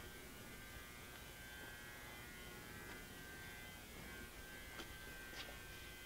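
Faint steady electrical hum with a thin high whine, and two faint ticks about five seconds in.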